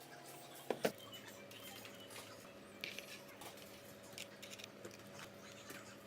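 Two sharp clicks about a second in, then scattered light taps and clicks of handling, over a steady low hum.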